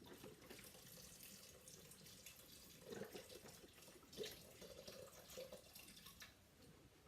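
Faint pouring and splashing of chicken broth from a carton into the pressure cooker pot.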